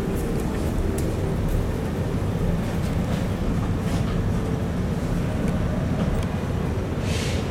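Tatra T3 tram running along the line, a steady low rumble of wheels on rails and running gear with a faint hum, heard from aboard the car. A short hiss comes near the end.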